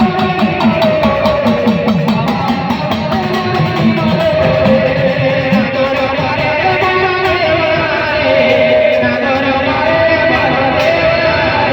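Loud folk music with a plucked, guitar-like lead over a steady fast beat.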